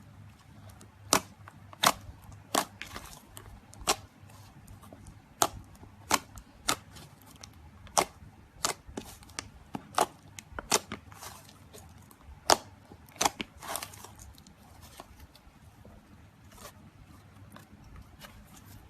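Slime being pressed and played with by hand, making sharp, irregular pops and clicks, several loud ones close together, thinning out to faint ones over the last few seconds.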